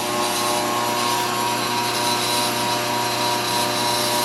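Metal lathe running at a steady speed, a constant drone with several fixed tones, turning a brass plug in its chuck while it is being tapped.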